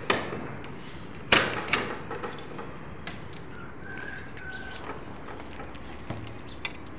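Metal sliding bolt and padlock on a wooden gate being unfastened: a click, then two loud metallic clanks about a second and a half in, followed by lighter clicks and knocks and a faint thin high tone near the middle.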